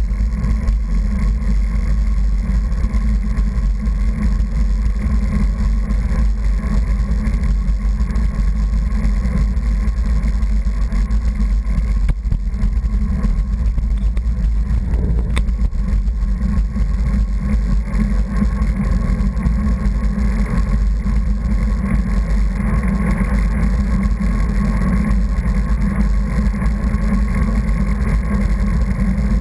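Steady low rumble of wind and road noise on a camera riding along with a moving vehicle, with one faint click about halfway through.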